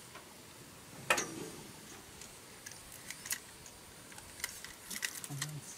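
Clicks and ticks from a fishing rod and spinning reel being handled while a hooked tilapia is played: one sharp click about a second in, then scattered light ticks.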